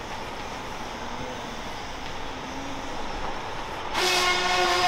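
Electric brushless motor and propeller of an F3P indoor aerobatic model plane (T-Motor BPP-4D power system) buzzing in flight, its pitch wavering with the throttle. About four seconds in it swells into a loud, steady high whine as the plane comes close overhead.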